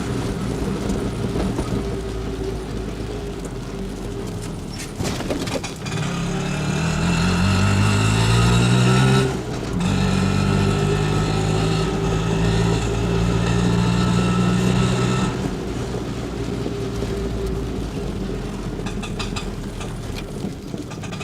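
Auto rickshaw's single-cylinder engine running. It revs up with rising pitch about six seconds in, dips briefly near nine seconds, runs steadily and louder for several seconds, then eases back to a lower, steadier note.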